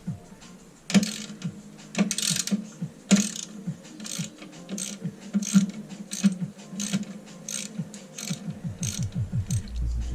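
A 10 mm ratcheting spanner clicking in repeated strokes as a bolt is undone. The clicks come faster and closer together near the end.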